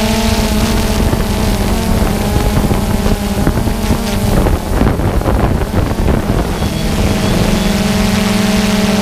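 Multirotor drone's motors and propellers humming steadily, heard from the drone's own camera. For a few seconds in the middle the hum wavers and breaks up into an uneven, gusty rushing, then settles back to a steady tone.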